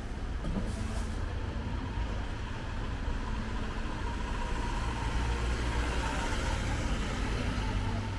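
Street traffic: a van's engine and tyres growing louder as it drives past, over a steady low rumble.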